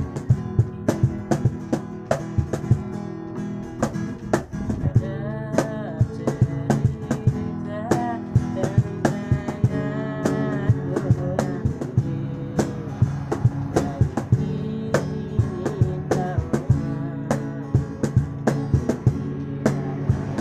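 Acoustic guitar strummed in a steady rhythm, with a wooden cajon slapped by hand giving sharp regular beats, and a voice singing along through the middle.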